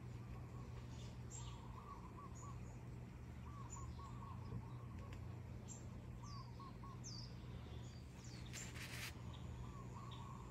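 Birds chirping: repeated short high chirps that sweep downward, and quick stuttering trills, over a steady low hum. A brief hiss lasting about half a second comes near the end.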